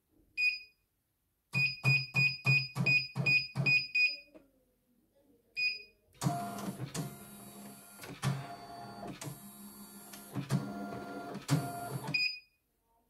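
Control-panel beeps from a computerized embroidery machine as its keys are pressed, including a quick run of about eight beeps each paired with a low thud. Then about six seconds of the machine running, a steady whirr with a regular knock roughly every two-thirds of a second, which stops abruptly near the end.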